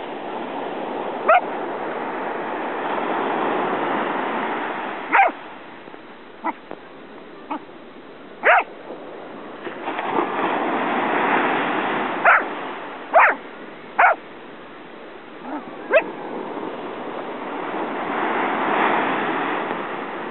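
Corgi giving short, sharp barks and yips, about nine of them at uneven intervals, a few fainter than the rest. Behind them surf washes in and out, swelling and fading.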